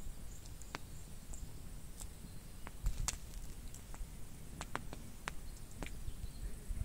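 Wood campfire crackling, with a handful of irregular sharp pops, the loudest about three seconds in.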